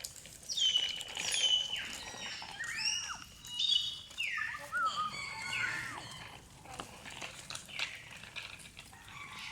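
Birds calling: many clear whistled notes that slide down and up in pitch, several overlapping.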